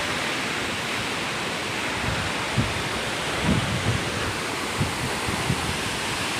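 Steady rushing roar of a waterfall, with a few brief low thumps.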